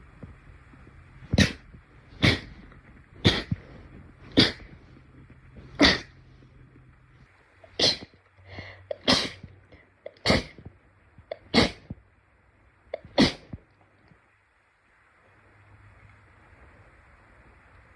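A rapid run of about ten short, sharp sneezes, one roughly every second, over a faint steady hum.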